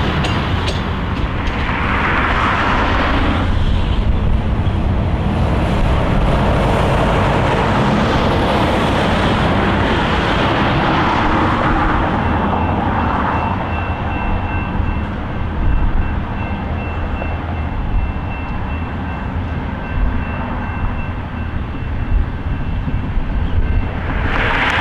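A train rolling past with a steady rumble and rattle of wheels on rail. From about halfway through, a thin, high, steady squeal joins in, along with a few sharp clanks.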